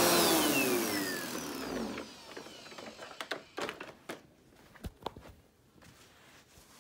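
Bagless vacuum cleaner switched off, its motor whine falling in pitch and dying away over about two seconds as it spins down. Then a few light knocks and clicks.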